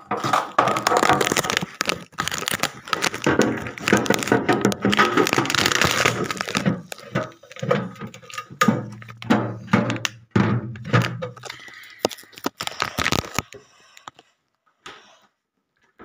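Foam and plastic packing being handled and pulled out of a new refrigerator's interior: dense crackling and rustling with sharp knocks against the plastic shelves, thinning out and stopping about fourteen seconds in.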